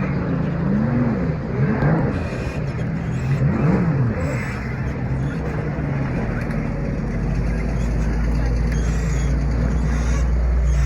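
Jet ski engine whose pitch rises and falls several times over the first few seconds, then settles into a steady low rumble.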